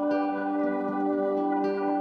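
Background music: soft, sustained ambient instrumental tones with a few plucked notes.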